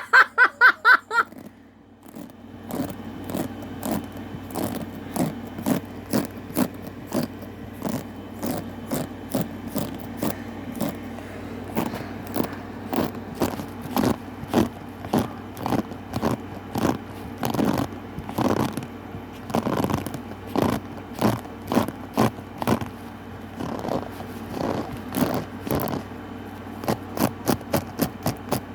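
Pet grooming tool scraping in repeated short strokes, about one to two a second, coming faster near the end, over a steady low hum.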